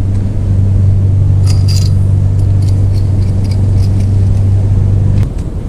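A machine running with a steady low hum that cuts off suddenly about five seconds in, with a few faint metallic clicks about one and a half seconds in.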